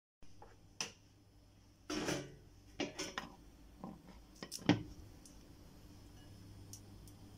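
Scattered light clicks and knocks of a non-stick frying pan being handled on a glass-top hob, the sharpest knock about two-thirds of the way through, over a faint low hum.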